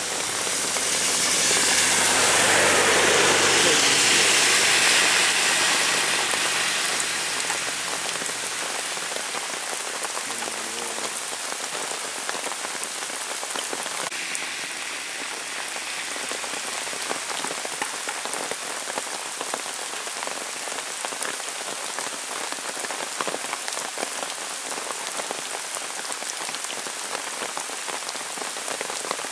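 Heavy rain falling steadily on a road and roadside trees. Over the first few seconds, a vehicle's engine and its tyres on the wet road swell louder and then fade away.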